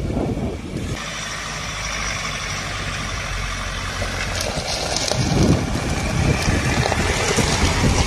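Ford Ranger Raptor's 2.0-litre bi-turbo four-cylinder diesel running steadily at low speed as the pickup crawls over soft, rutted ground, with louder uneven rumbles from about five seconds in.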